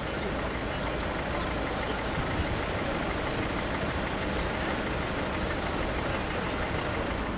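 Steady street traffic noise, with a large vehicle's engine running close by.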